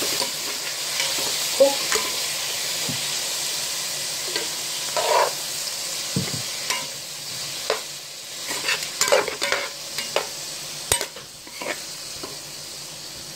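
Curry-powdered mixed vegetables sizzling as they sauté in hot oil in a pot, with a utensil scraping and clacking against the pot as they are stirred. The sizzle grows quieter toward the end.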